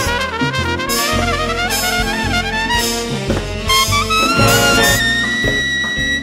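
Big-band jazz: saxophones and trumpets play the melody over bass and drums. The horns hold one long note near the end.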